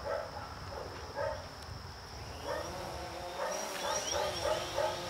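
A quadcopter drone's motors spin up with a rising whine about two and a half seconds in as it lifts off, then settle into a steady hum while it hovers. Dogs give short yips and whimpers.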